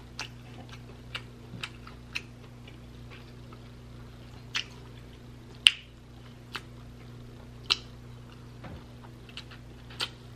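Close-miked eating sounds: a person biting and chewing glazed lamb chop meat off the bone, with short sharp wet mouth clicks and smacks about once a second, the loudest a little past halfway. A faint steady low hum runs underneath.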